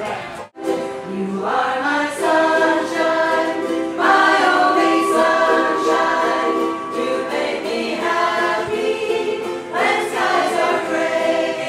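A group of singers, mostly women, singing together to ukulele accompaniment, with long held notes. There is a brief break in the sound just after the start.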